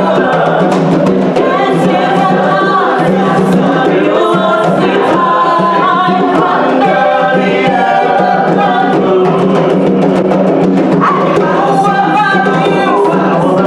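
Djembe and a second, smaller hand drum played with bare hands in a steady rhythm, under a group of voices singing.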